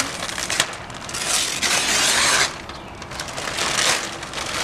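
Glossy wrapping paper being ripped and crumpled by hand off a large present. There is a long, loud rip about a second in and a shorter one near the end, with crinkling in between.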